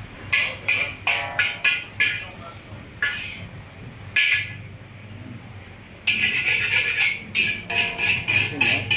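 Metal wok spatula knocking and scraping against a wok, a run of sharp metallic clanks with short ringing. The clanks are spread out at first, then come in a busier run from about six seconds in.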